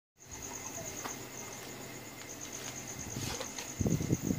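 A cricket chirps steadily, a high, evenly pulsing trill. Near the end come a few low knocks and rustles as a loudspeaker is handled near the set.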